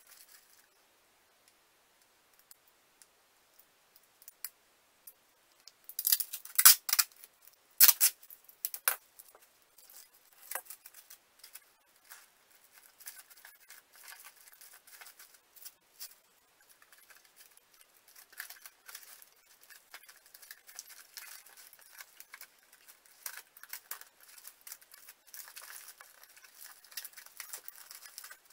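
Clear adhesive tape being pulled off in a few short, loud strips about six to nine seconds in, then soft crackling and rubbing of tape and cardboard as the tape is pressed down along the joint of cardboard panels.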